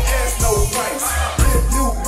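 Hip hop track playing, with a heavy bass beat and vocals.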